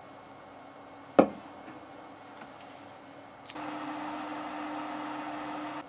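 Desktop PC fitted with an ARCTIC Liquid Freezer 120 liquid cooler running quietly, a faint steady hum, with one sharp knock about a second in. About three and a half seconds in it switches to the same PC on its old air-cooling fans: a louder steady whir with a low hum, which cuts off suddenly.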